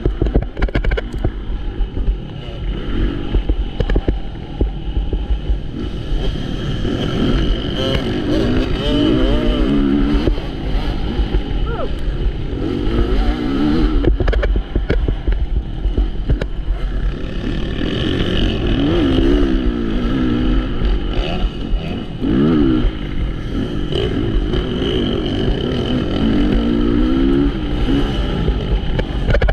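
Motocross bikes racing: several engines revving up and down as they shift and accelerate, over a constant deep rumble.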